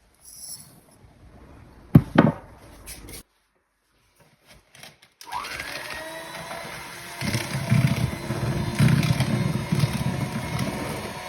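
An electric kitchen appliance motor starting about five seconds in with a rising whine, then running steadily and getting louder. Before it, faint handling sounds and a single knock.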